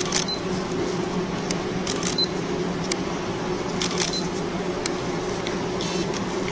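A steady low hum with scattered short, light clicks.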